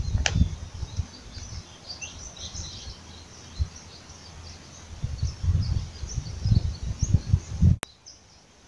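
Many small birds chirping in the background, over a low, irregular buffeting rumble on the microphone that swells in the second half. The sound cuts off abruptly near the end.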